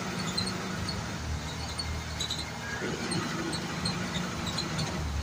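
Inside a moving bus: steady engine drone and road noise, with small scattered ticks and rattles.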